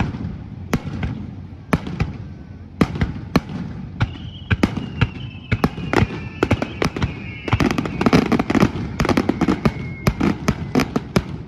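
Aerial fireworks bursting in rapid, irregular bangs that thicken into a dense flurry near the end. A faint whistle slides slowly down in pitch through the middle.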